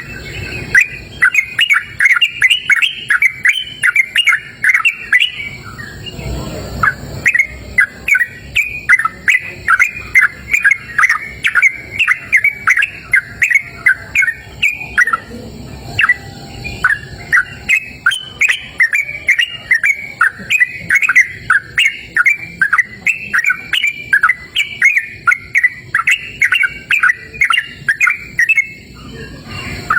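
Yellow-vented bulbul (trucukan) singing: loud, rapid phrases of short chirping notes, several a second, broken by a few brief pauses.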